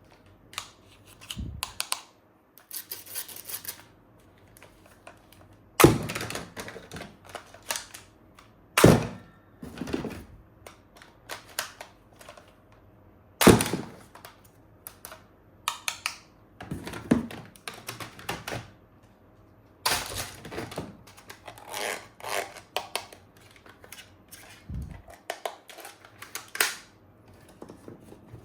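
Hard plastic toy gun parts being handled: irregular clicks and knocks, with a few louder sharp knocks and a short stretch of rustling.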